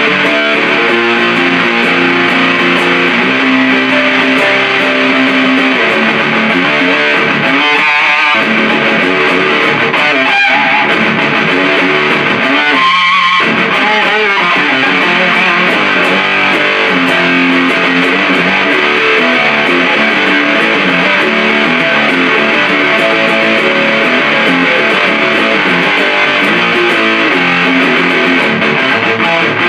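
Electric guitar played through a 77 Fuzz Blender, a Big Muff-style op-amp fuzz pedal, into an Orange Super Crush 100 amp: heavy fuzz-distorted doom riffs with held chords, played without a break.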